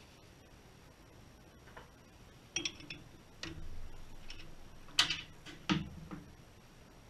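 Sharp metal clicks and clinks of a T-handle chuck key working a wood lathe's scroll chuck, loosening the jaws to free a small turned wooden piece. A scattered handful of clicks, the loudest about five seconds in.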